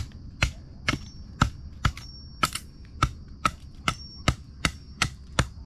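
Quick, steady chopping: about fourteen sharp strikes at roughly two to three a second, over a thin, steady high insect trill.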